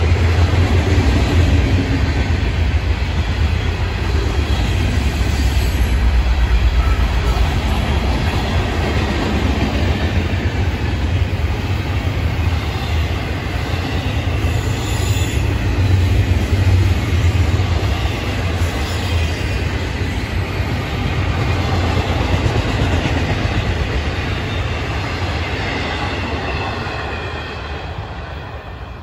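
Florida East Coast Railway freight cars, including double-stack intermodal cars, rolling past on steel wheels and rails with a steady low rumble. The sound fades over the last few seconds as the end of the train goes by.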